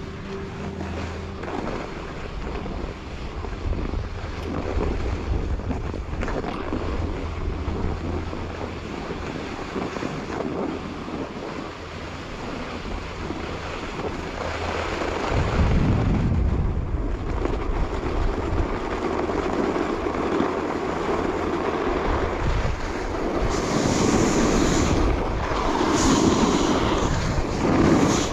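Wind rushing over a chest-mounted action camera's microphone, mixed with the hiss of an alpine snowboard's edge carving groomed snow. In the last few seconds the noise swells and fades in repeated surges, one per turn. A low steady hum runs under it through the first half.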